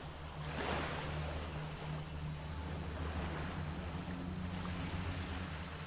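Small waves washing up on a sandy beach, a surge of wash about a second in, over a low steady drone.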